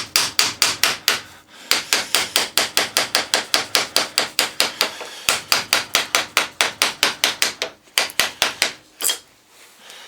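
Hammer tapping rapidly and steadily on a starter motor, about six sharp strikes a second with a few brief pauses, to knock a part of the motor loose.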